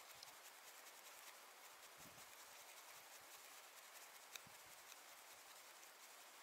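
Near silence, with faint rubbing and a few small clicks as hands work on electrical wire connectors; one click a little past four seconds in is the sharpest.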